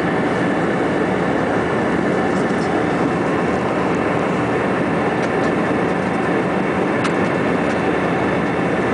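Steady cabin noise of an Airbus A321 in flight: engine hum and rushing airflow heard from a window seat over the wing. A few faint ticks sound through it.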